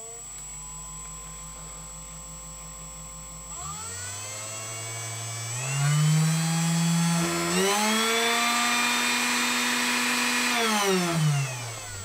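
Upgraded DC spindle motor of a Woodpecker 3018 CNC, run from a pulse-width-modulation speed controller, speeding up in steps from about four seconds in, holding a steady whine, then slowing down near the end. A thin steady high whistle runs underneath.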